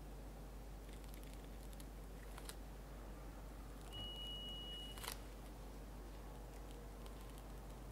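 Quiet room with a steady low hum and faint handling sounds from piping whipped cream out of a pastry bag. About four seconds in, a thin high beep holds for about a second and ends in a sharp click.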